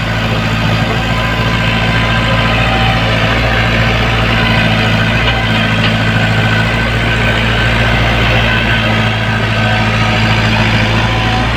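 Komatsu PC75UU mini excavator's diesel engine running at a steady speed, with no revving.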